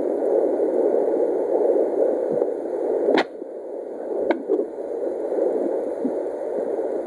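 Sonoline handheld fetal Doppler's speaker giving a dense, steady static whoosh. A sharp crack about three seconds in, after which the static turns quieter, and two lighter knocks about a second later.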